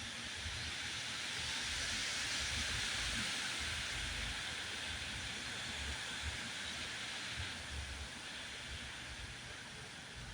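Strong wind: a rushing noise that swells over the first few seconds and slowly eases off, with gusts buffeting the microphone in low rumbles.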